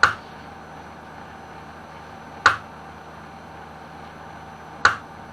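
Kyocera M2040dn laser printer's fuser drive gearbox giving sharp clicks about every two and a half seconds, three in all, over the printer's steady running hum. The clicks are the gearbox's safety clutch slipping because the FK-1150 fuser turns stiffly; the gearbox itself is sound.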